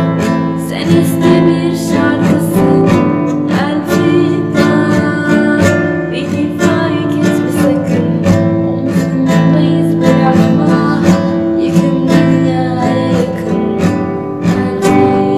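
Music: a guitar strumming chords in a steady rhythm.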